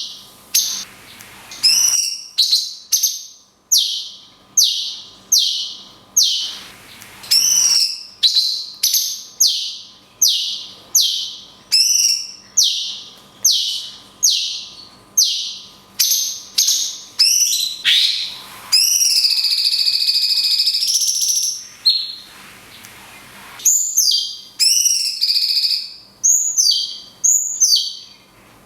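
Cucak cungkok songbird calling: a long string of sharp, loud falling whistled notes, about one or two a second, the long 'kunti' shot calls. Around two-thirds of the way through comes one long held call, then quicker, shorter notes near the end.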